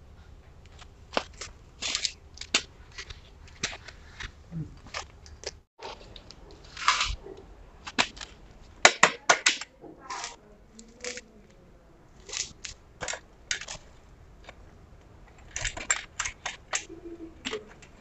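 Metal bicycle parts being handled during a repair: irregular sharp clicks and clinks of the chain and rear derailleur, some coming in quick clusters.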